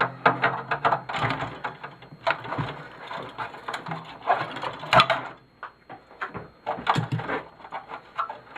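Cutters snipping and parts of a small TV's insides being worked loose: a busy run of clicks, snaps and scraping of metal and plastic, with sharp snaps about five and seven seconds in.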